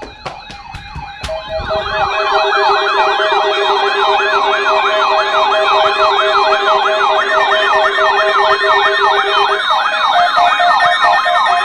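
Several electronic sirens sounding together: a fast rising-and-falling yelp about twice a second over rapidly pulsing beep tones. A few sharp clicks come in the first second, and the sirens build to full level about two seconds in.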